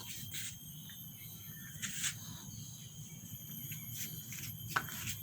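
Insects chirping in a steady high-pitched chorus, with a few soft clicks or rustles in between.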